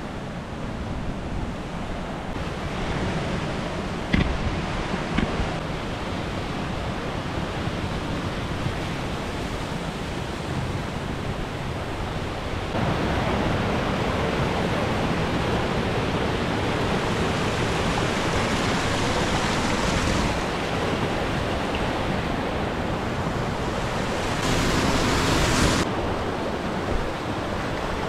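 Steady rush of falling water and ocean surf, with wind buffeting the microphone. It gets louder about halfway through, and there is a brief sharper hiss near the end.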